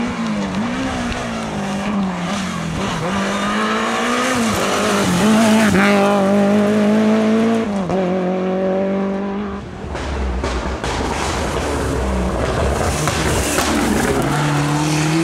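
Rally car engines at full throttle on a special stage. For the first ten seconds one engine revs high, its pitch climbing and dropping with each gear change. At about ten seconds the sound switches abruptly to a second car with a deeper, rougher engine note.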